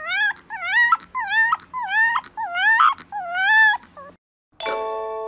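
A fluffy white puppy giving a run of short, high-pitched whining howls, about two a second, each rising and then falling in pitch. They stop about four seconds in, and after a short gap a chime of bell tones rings out.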